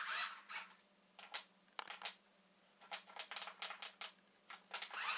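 Irregular light clicks and taps, a few bunched together, over a faint steady hum.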